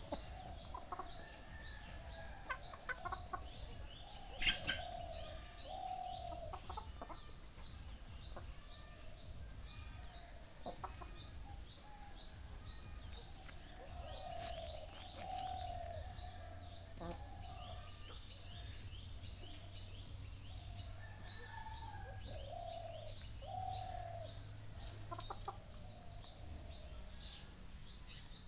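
Domestic chickens clucking in short runs of falling calls, over a high chirp that repeats about two or three times a second throughout.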